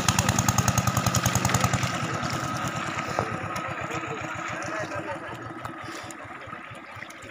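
A small engine running with a rapid, even chugging beat, loud at first and fading steadily after about two seconds.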